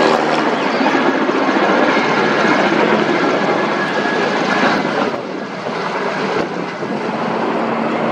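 Firefighting helicopters, including Kamov Ka-32 coaxial-rotor water bombers, running with the steady noise of rotors and turbines. The sound changes abruptly about five seconds in and again a second and a half later.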